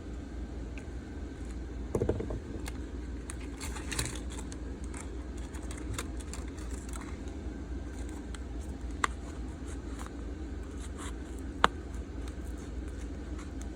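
Small scrapes and light clicks of hand tools prying the back cover off a Samsung Galaxy A31, with a sharp click about nine seconds in and a louder one near the end, over a steady low hum.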